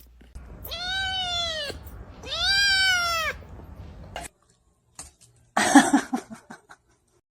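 Domestic cat giving two long, drawn-out meows, each rising then falling in pitch. About six seconds in there is a short burst of noise.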